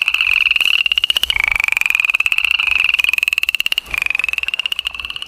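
Frogs trilling: fast, high-pitched pulsed trills in long runs that each rise slightly in pitch, one taking over from the next about a second in and again near four seconds.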